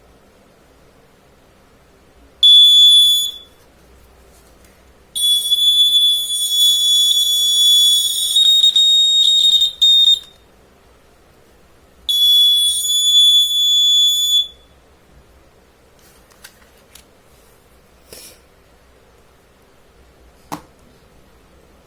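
Home-made fire alarm's buzzer sounding a steady high-pitched tone in three bursts: a short one, a long one of about five seconds, and one of about two and a half seconds. A few faint clicks follow near the end.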